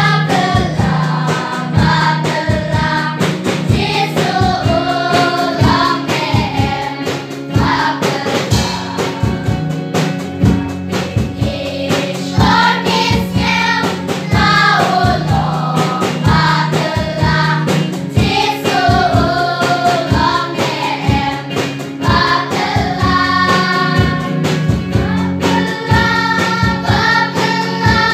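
Children's choir singing a song together, over backing music with a steady beat.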